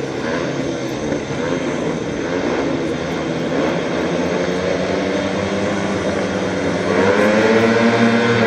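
Several speedway bikes' single-cylinder methanol engines revving at the starting gate, their pitches rising and falling, getting louder about seven seconds in as the riders build revs for the start.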